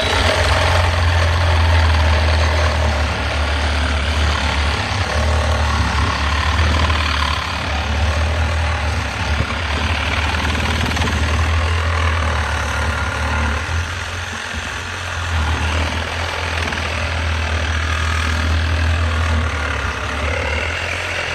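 Reciprocating saw with a DeWalt blade running steadily as it cuts through the metal top of a microwave oven magnetron clamped in a vise. It eases off briefly about two-thirds of the way through.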